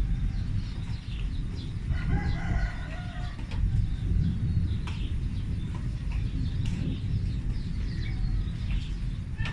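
A continuous low rumble like distant thunder, from an unidentified source, running without a break. Birds chirp over it, with a longer pitched bird call about two seconds in.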